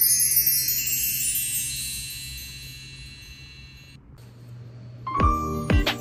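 Wind-chime sound effect: a cascade of high bell-like tones ringing out and fading away over about four seconds. About five seconds in, light music with short plucked notes begins.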